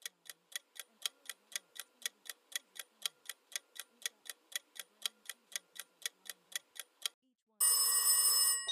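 Quiz countdown timer ticking steadily, about three to four ticks a second for some seven seconds. It is followed near the end by a loud ringing alarm bell as time runs out.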